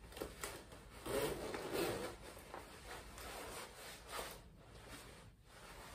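A Canada Goose Rossclair down parka rustling and rubbing as the wearer handles its zipper front and turns. The fabric noise is loudest between about one and two seconds in.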